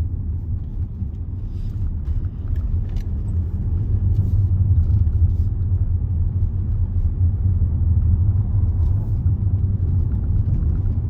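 Steady low rumble of road and engine noise inside a moving Range Rover's cabin, heard while cruising along a country road.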